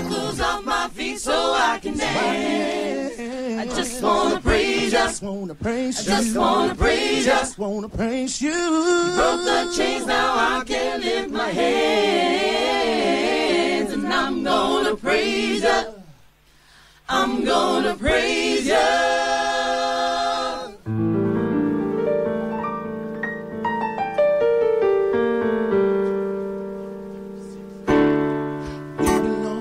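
Live R&B vocal group singing in close multi-part harmony with keyboard accompaniment. The voices break off briefly about halfway and come back, then drop out about two-thirds through, leaving held keyboard chords that fade away before a new chord is played near the end.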